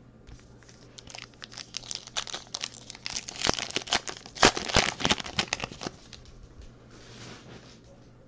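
The wrapper of a 2020 Topps Gypsy Queen trading-card pack being torn open by hand and crinkled: a dense run of crackles, loudest near the middle. A softer rustle follows near the end.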